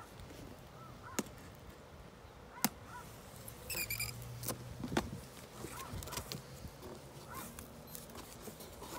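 Packing tape being slit and a cardboard box opened by hand: a few sharp clicks and snaps with some rustling of cardboard. Birds chirp faintly in the background.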